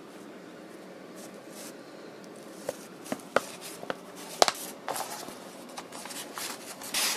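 A paper instruction booklet being handled and turned over by hand: scattered soft taps and paper rustles, with a longer rustle near the end.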